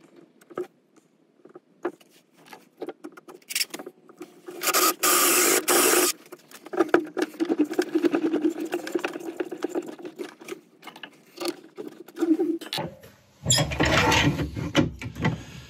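Workshop sounds of an olive ash bowl blank being mounted on a wood lathe chuck's worm screw. About five seconds in there is one loud burst lasting about a second and a half. Then comes a long run of rhythmic rubbing and clicking as the blank is worked onto the screw. Near the end, louder scraping strokes begin.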